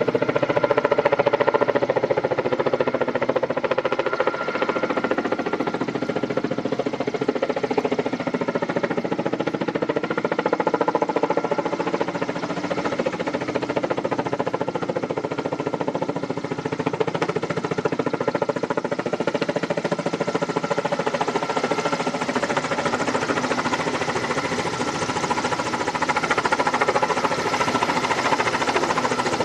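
Kamov Ka-32A11BC helicopter approaching low and close, its coaxial rotors and turbine engines making a steady, dense noise with several held tones.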